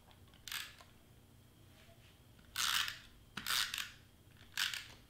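Double-sided tape runner pressed and drawn across cardstock, laying strips of tape in four short strokes, each lasting a fraction of a second.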